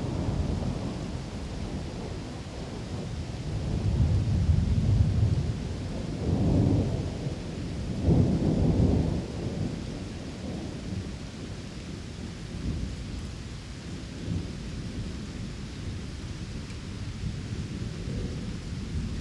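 Thunderstorm: rolling thunder rumbling over steady rain, with several swells in the first half, the loudest about eight to nine seconds in, then dying back to a steady rain-and-rumble bed.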